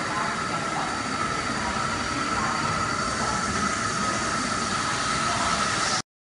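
Doosan Puma TT1800SY CNC turning centre running a cut, coolant spraying inside its enclosure: a steady machine noise with a high, even whine. It cuts off suddenly near the end.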